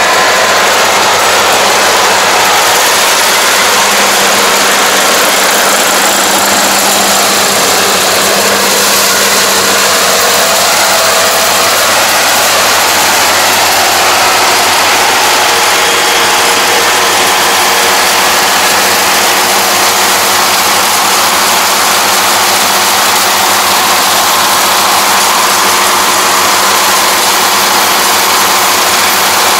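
Yanmar AE447 crawler combine harvester working through a standing grain crop: its engine and cutting and threshing machinery run loud and steady, without a break.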